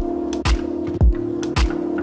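Electronic background music with a steady kick drum about twice a second under a held synth chord.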